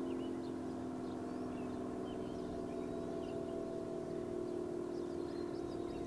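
ACA P-50 outdoor warning siren sounding its steady alert signal: a sustained chord of several tones, easing off very slightly in loudness. Small birds chirp faintly above it.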